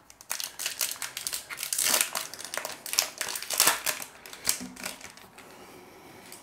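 Foil wrapper of a trading-card pack crinkling as it is handled and opened by hand, a dense run of crackles that dies down about four seconds in.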